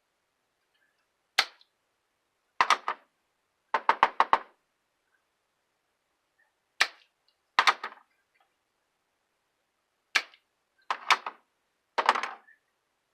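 Sharp clicks and clacks of small hard parts of a disassembled desoldering pump being handled and fitted, coming singly or in quick runs of two to five, about eight times.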